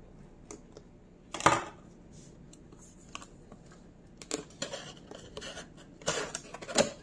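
Scissors cutting the seal of a cardboard gift box, with one loud cut about a second and a half in. This is followed by scattered scraping and rustling of cardboard and packaging as hands work the box open, louder again near the end.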